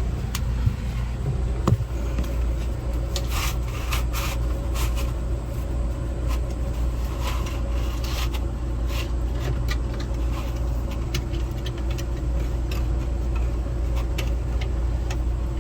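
Wire drain snake scraping and rattling as it is worked down a shower drain to clear a clogged P-trap, in many short irregular scrapes over a steady low rumble.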